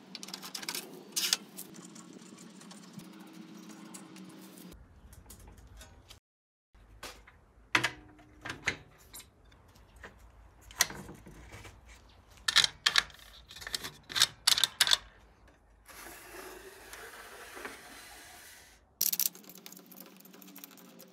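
Clicks, clacks and sliding rubs from the metal rip fence and extension table of an Einhell TE-CC 250 UF jobsite table saw as they are moved and locked by hand. Sharp knocks come singly and in quick clusters, with a few seconds of steady sliding noise near the end.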